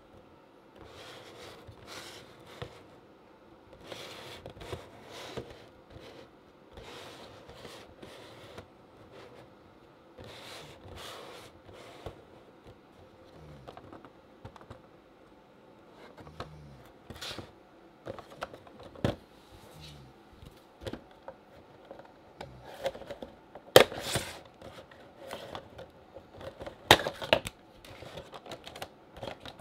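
Cardboard Funko Pop boxes with clear plastic windows handled by hand on a desk: soft rustling and scraping, with a few sharp knocks as the boxes are set down or tapped, the loudest knocks near the end.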